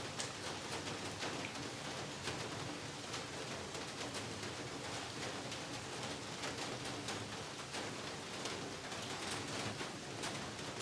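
Heavy rain falling steadily, a dense hiss of rain with many separate drops striking close by.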